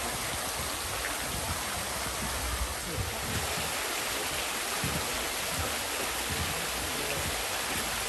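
Small waterfall of a tufa spring, water falling from icicle-hung mossy rock and splashing into its pool, a steady, even rush of water.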